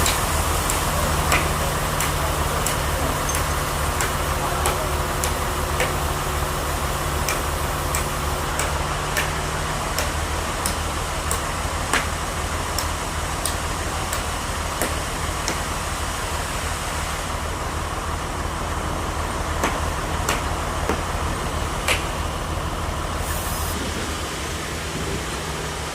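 Sawmill machinery running steadily: a low engine-like hum under a wide hiss, with sharp clicks and knocks scattered throughout.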